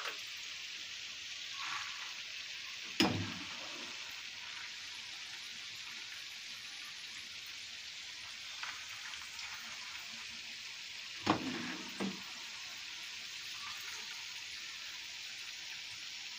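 Peanuts frying in hot oil in a pan, a steady sizzle. A few knocks of a metal skimmer against the pan, the sharpest about three seconds in and two more around eleven to twelve seconds.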